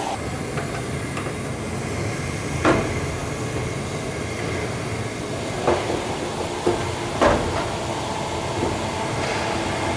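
Steady low rumble with a few short, sharp knocks, about three, six and seven seconds in, as a pneumatic rivet gun is handled and set against the aluminium underside skin of an aircraft fuselage before riveting.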